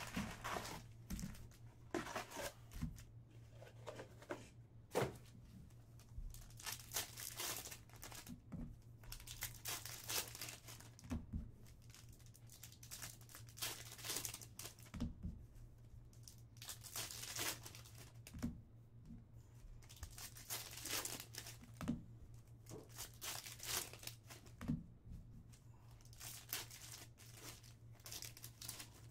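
Foil trading-card packs from a 2022 Panini Contenders Football box being torn open and their wrappers crinkled, in many short irregular rips. A low steady hum sits underneath.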